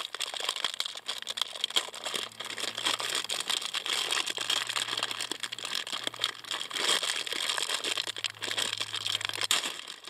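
Plastic bag of dried pasta crinkling and rustling as it is handled, with dense irregular crackling throughout, over a pot of water at the boil on a small camp stove.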